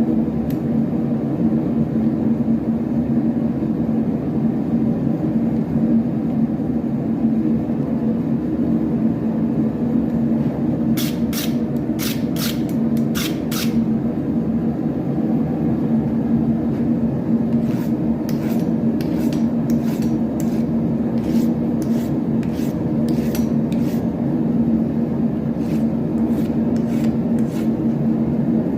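Steady hum of a blacksmith's forge blower running, with short runs of quick, light scraping ticks in the middle and through the second half.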